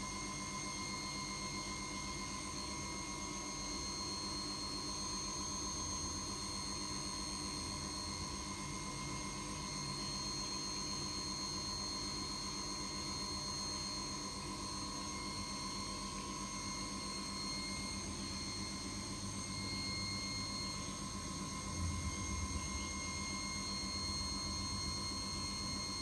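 A steady whir with a constant high-pitched whine and hiss, unchanging throughout.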